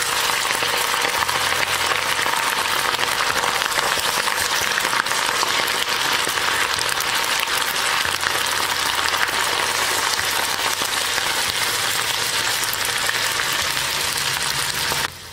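Idli-batter bondas deep-frying in hot oil in a small kadai: a steady, dense sizzle and crackle of bubbling oil that cuts off abruptly just before the end.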